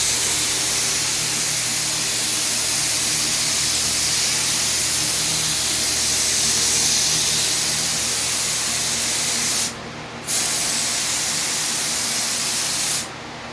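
Paint sprayer hissing steadily as it sprays paint, stopping for a moment about ten seconds in, starting again, and cutting off shortly before the end.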